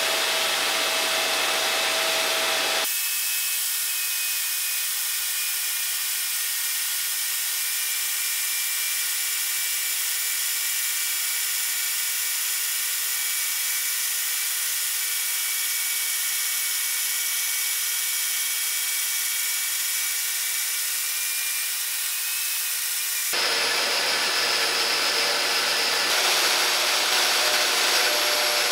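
Electric grinder with a small abrasive wheel grinding the steel roller of a roller mill, truing a worn, pitted wheel: a steady grinding hiss with a thin high whine. The low rumble drops out abruptly about three seconds in and returns near the end.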